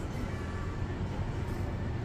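Casino floor ambience: slot machine music and electronic tones over a steady low rumble.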